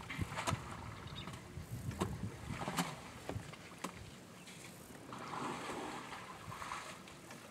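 An African elephant drinking at a waterhole: water splashing and sloshing as it draws water up with its trunk, with a few sharp clicks in the first few seconds.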